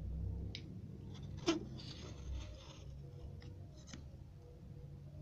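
Plastic LEGO-style big-figure being handled by hand: soft rubbing with a few light plastic clicks, one sharper click about a second and a half in, over a faint steady low hum.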